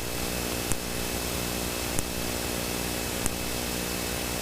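Cessna Citation V cockpit in flight: the steady drone of its twin turbofan engines and airflow, with many steady tones in it. A short faint click repeats about every second and a quarter.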